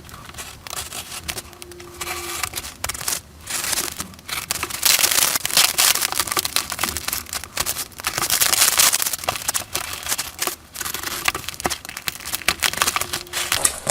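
Knife cutting and scraping through packing tape and cardboard on a parcel, with the packaging crackling and crinkling in uneven rasping spurts and small clicks.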